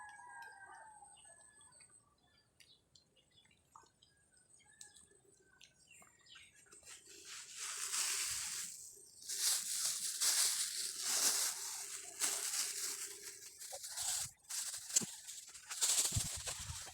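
A rooster's crow trails off at the very start, followed by faint scattered ticks. From about seven seconds in come repeated loud bursts of rustling and crackling, like close handling noise.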